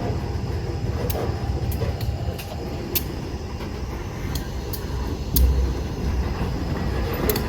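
Freight train approaching slowly in reverse, a loaded covered hopper ahead of a trailing diesel locomotive: steady low rumble with scattered sharp clicks, and a louder low thump a little past halfway.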